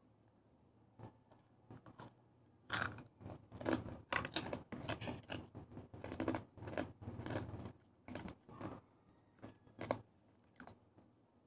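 Close-up chewing of crispy deep-fried pork chicharon bulaklak: a dense run of irregular crunches from about three seconds in to about nine seconds, then a few scattered crunches near the end.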